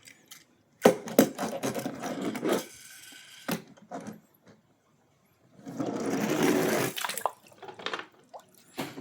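Toy packaging being handled and opened: two stretches of plastic and cardboard rustling with sharp clicks, about a second in and again past the middle, with a few scattered clicks between them.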